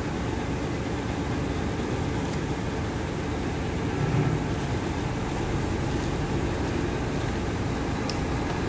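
Steady low rumble of the stove heating a pan of fish and radish soup, with a slight swell about four seconds in.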